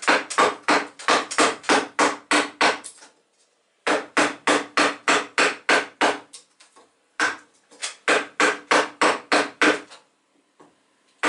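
Wooden mallet striking a wood-carving chisel, chopping into a glued-up laminated wooden block: quick blows at about four a second in three runs, with short pauses about three and a half and seven seconds in.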